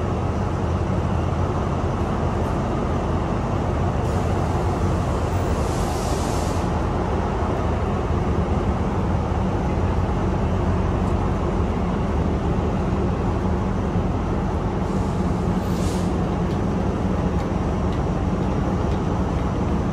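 Diesel engine of a standing passenger train idling, a steady low drone with a continuous hum. Two brief hisses come through, one about six seconds in and one near the sixteenth second.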